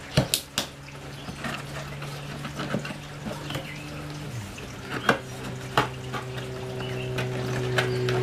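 Hands handling a large cardboard box: scattered taps, knocks and rubbing on the cardboard, the sharpest just at the start and again around five and six seconds in. Under them is a low steady hum that drops in pitch about halfway through and grows louder toward the end.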